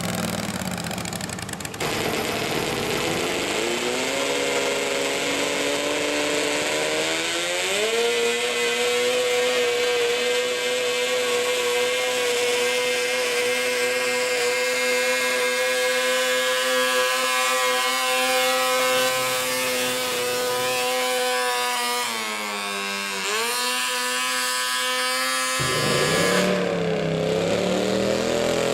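Modified riding lawn mower engine revving up over several seconds and held at high, steady revs for about fifteen seconds during a pull. The engine then drops off, revs briefly once more and falls back to a low, rough idle near the end.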